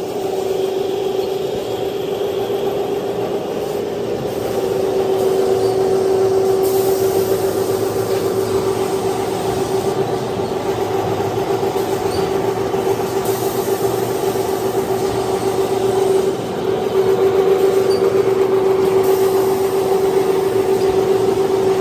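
Double-sided veneer glue spreader machine running: a steady mechanical hum with one constant tone, dipping briefly about three-quarters of the way through.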